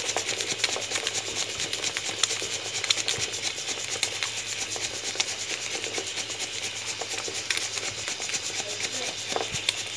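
Five eggs frying in very hot oil in a pan, a steady sizzle with dense, fine crackling.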